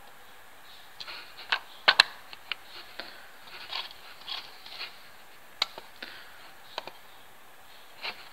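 Computer mouse clicking: about nine sharp, irregular clicks, the loudest two close together about two seconds in, with faint soft rustling between them.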